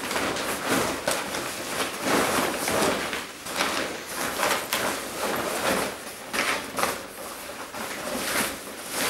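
Rustling and knocking of household things being handled and pushed into a container, an irregular run of crinkles and light bumps.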